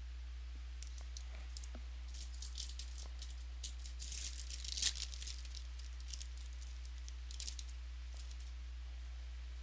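Trading cards and their packaging being handled: a run of quick crinkles, rustles and clicks, busiest around the middle, over a steady low electrical hum.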